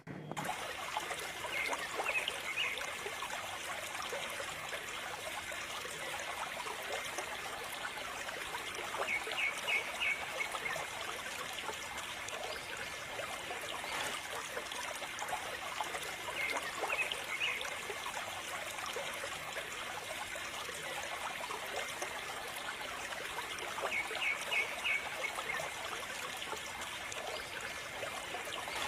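A thin stream of water from a small pipe trickling and splashing onto toy tractors and into a muddy puddle. Short clusters of high chirps recur about every seven seconds.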